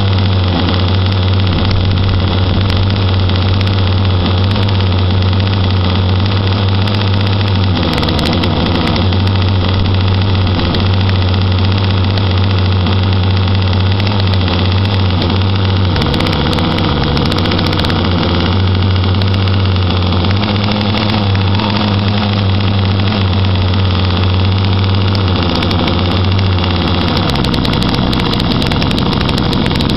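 QuickDraw 25HT two-stroke gas engine in an RC catamaran, idling steadily. Its note shifts briefly a few times, and once more near the end.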